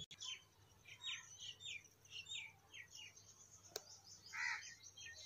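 Small birds chirping faintly: a quick string of short, high chirps that slide downward, with one louder, lower call about four and a half seconds in.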